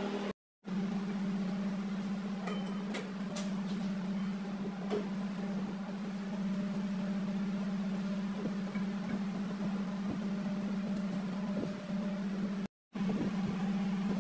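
Steady mechanical hum of a running motor, with a few faint clicks of metal parts being handled; the hum breaks off for a moment twice.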